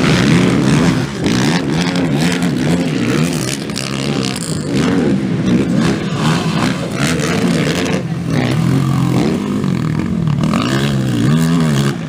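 Racing ATV (quad) engine noise on a motocross track, revving up and falling off again and again as the throttle is worked.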